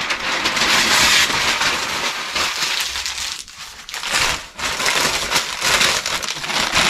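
Packing material being crumpled and crinkled in handfuls while an item is packed into a cardboard shipping box, an irregular run of crackling with short pauses.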